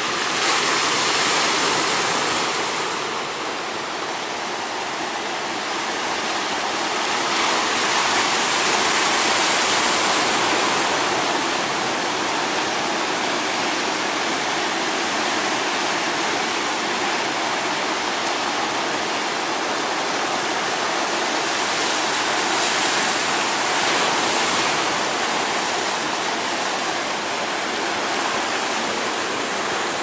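Heavy ocean surf: big waves breaking and washing ashore in a steady rush of noise, swelling louder about a second in, again around nine seconds, and near twenty-three seconds.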